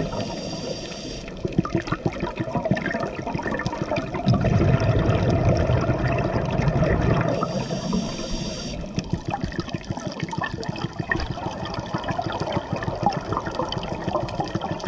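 Scuba regulator breathing heard underwater through a camera housing: a hissing inhale at the start and again about seven seconds in, with bubbling exhaled air rumbling loudest between them, over a steady crackle of small clicks.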